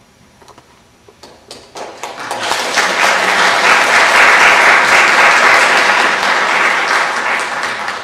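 Congregation applauding: a few scattered claps at first, swelling about two seconds in to loud, dense applause that eases off a little near the end.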